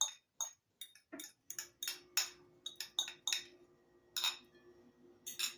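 A utensil clinking and tapping against dishes: a dozen or so short, irregular clinks while salad dressing is emptied into a salad bowl.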